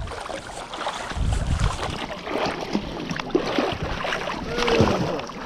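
River water splashing and sloshing at the rocky shoreline, with scattered short crackles and clicks.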